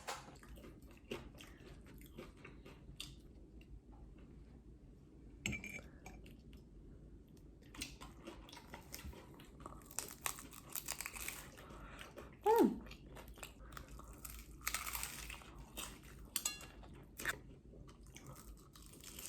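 Crunchy bites and chewing of oven-baked tacos, in scattered bursts, with one short falling tone about twelve seconds in.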